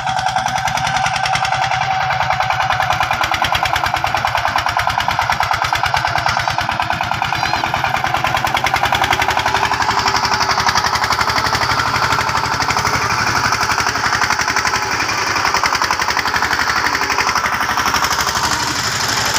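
Power-tiller trolley's single-cylinder diesel engine running under way, a loud, rapid, even knocking beat.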